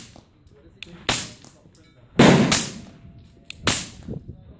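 Suppressed 9mm Glock 19 pistol with a Gemtech Tundra silencer firing subsonic rounds: four sharp shots about a second apart, the third, just past two seconds in, the loudest and deepest.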